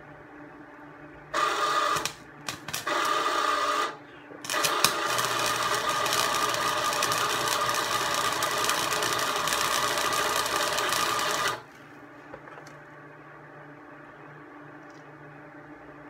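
Harbor Freight 90-amp flux-core wire welder striking an arc on its maximum setting: two short starts about a second in, then a steady buzzing arc held for about seven seconds that cuts off suddenly.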